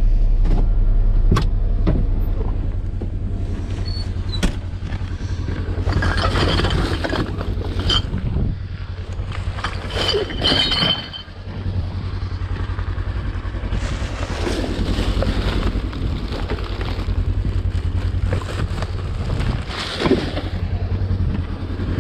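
Polaris Ranger XP side-by-side's engine running steadily, with irregular bursts of crunching and rustling from walking in snow around it.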